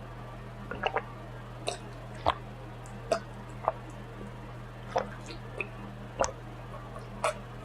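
Short wet mouth clicks and smacks, about ten of them at uneven intervals, as a person works at bringing up a burp.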